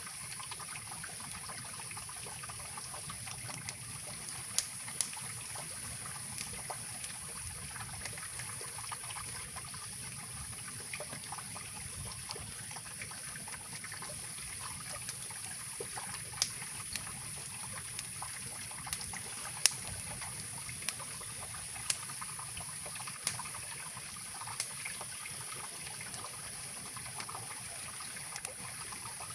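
Mountain river rushing steadily, with occasional sharp pops and cracks from a wood campfire burning above it.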